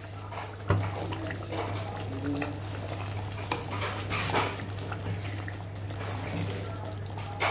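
A ladle stirring and scraping thick mutton curry in a steel kadai, with short clatters against the pan over a steady low hum. A dog barks now and then in the background.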